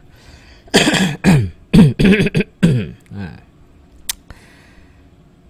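A man's short wordless vocal sounds close to a microphone: five or six quick bursts that slide down in pitch over about two and a half seconds, followed by a single sharp click.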